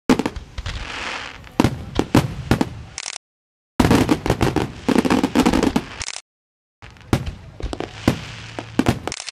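Beehive firework rockets firing en masse: a dense, rapid volley of sharp cracks and bangs over a crackling hiss. The sound drops out to total silence twice for about half a second, about three and six seconds in.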